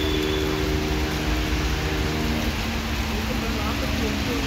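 Steady heavy rain, with a low steady hum that shifts in pitch about halfway through.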